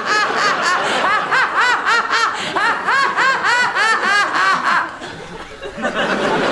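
Someone laughing in a high voice: a long run of rhythmic 'ha-ha-ha' sounds, about four a second, that breaks off about five seconds in.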